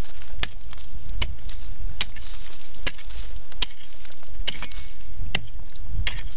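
Prospector's pick striking into stony ground, about eight blows at an even pace of roughly one every 0.8 s, some leaving a short metallic ring: digging out a metal detector target.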